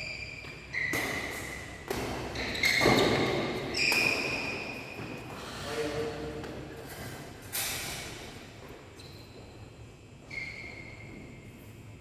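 Badminton rally in a large hall: sharp racket strikes on the shuttlecock about every one to two seconds, each with a short ringing ping and echo.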